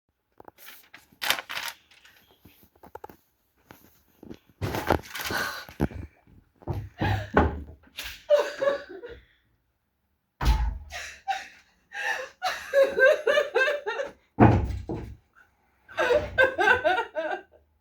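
Several dull thuds and knocks, the heaviest about ten and fourteen and a half seconds in, between short wordless sounds from people's voices.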